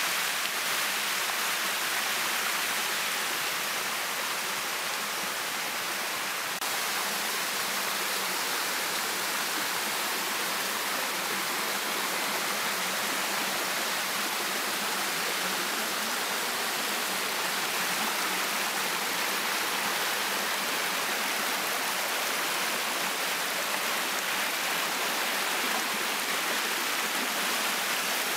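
Shallow waterfall water rushing and splashing over rock slabs close by, a steady, even rush.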